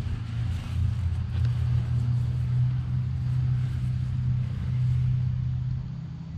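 An engine running steadily: a low, even hum.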